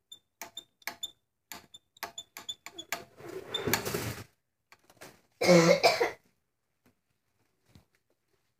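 Small metal parts being handled, a run of sharp clicks each with a short high metallic ting, then a rustle. A short, loud cough about five and a half seconds in.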